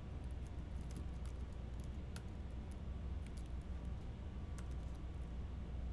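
Computer keyboard keys clicking in scattered, irregular keystrokes, the sharpest a little over two seconds in, over a low steady hum.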